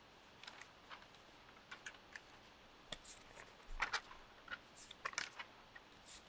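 Faint, scattered clicks and taps from handling a small piece of paper or card, with brief paper rustles about four seconds in and again a little after five seconds.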